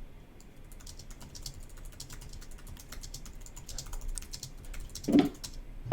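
Rapid, irregular clicking of a speedcube's layers being turned quickly, as a Rubik's cube is scrambled for the next solve.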